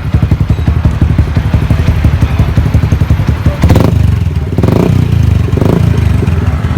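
Yamaha Sniper 150's single-cylinder four-stroke engine idling through its exhaust for a muffler sound check, then revved in three quick throttle blips about a second apart, a little past halfway.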